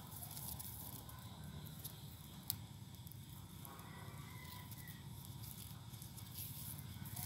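Faint rustling of a plastic cord being wrapped and tied by hand around a potted desert rose's trunk, with one sharp click about two and a half seconds in, over low outdoor background noise.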